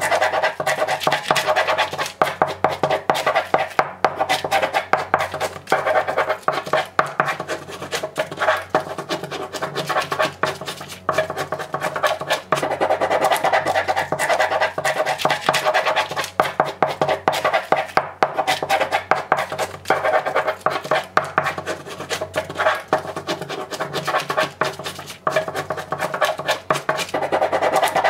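Background music with a rapid ticking beat over sustained tones.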